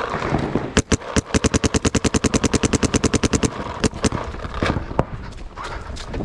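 Paintball marker firing: two or three single shots, then a fast string of about ten shots a second for about two seconds, then a few more single shots.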